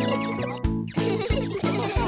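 Background music: after a short dip about half a second in, a light, bouncy tune comes in with a steady beat.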